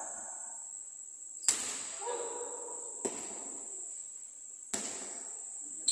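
A basketball bouncing on a gym floor: four slow dribbles about a second and a half apart, each ringing on in the large hall, over a steady high-pitched whine.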